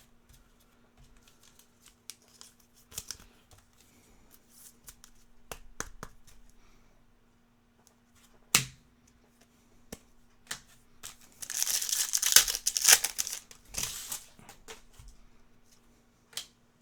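Foil trading-card pack wrappers being torn open and crinkled, with scattered clicks from the cards and wrappers being handled. The loudest stretch of tearing and crinkling comes about 11 to 14 seconds in, after a single sharp click about 8 seconds in.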